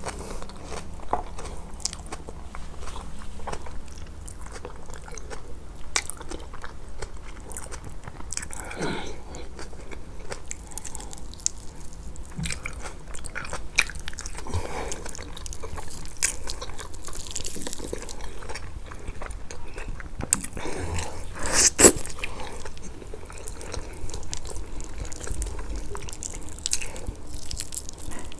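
Close-miked eating: a person chewing and biting food, with irregular wet clicks and short crunchy bursts and one louder snap about 22 seconds in.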